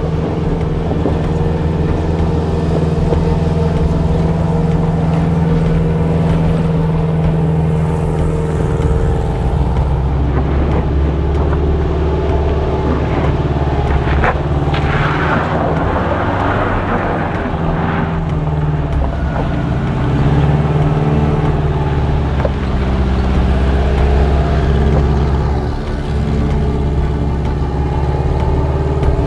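Volkswagen Vanagon van's engine running at steady low revs as the van crawls up a rocky trail, with a rougher, gritty stretch of tyres on gravel and rock around the middle.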